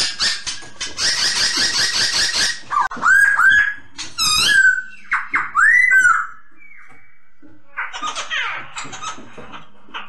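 Black-throated laughingthrush (poksay Hongkong) singing: a rapid harsh chatter, then a run of loud, clear whistled notes that swoop up and down, and a rougher chatter near the end.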